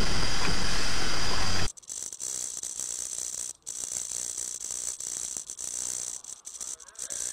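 Loud, steady rumble and noise of a moving vehicle's interior, which cuts off abruptly near two seconds in. It gives way to a car dash camera's thin, hissy recording of driving, full of crackles and small rattles.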